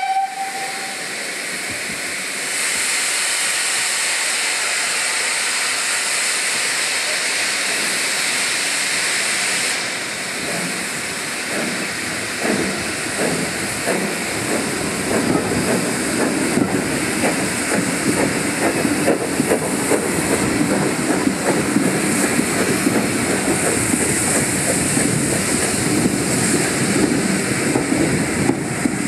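Steam-hauled passenger train heard from a carriage window: a steady hiss of steam and wind for about the first ten seconds, then the GWR 0-6-2T tank engine's exhaust and the clatter of the coaches' wheels on the rails come up louder for the rest.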